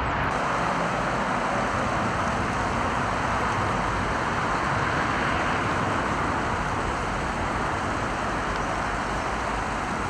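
Steady rushing noise of distant road traffic, an even wash of sound with no single vehicle passing clearly.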